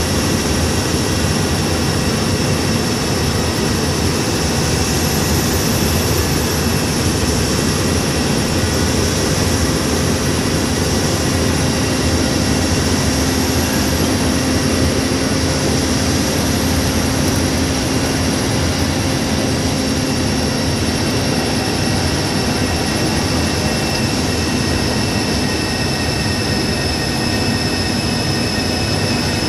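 Bus engine running steadily with road noise, heard from inside the front cabin while the bus drives at speed; a constant whine sits over the drone.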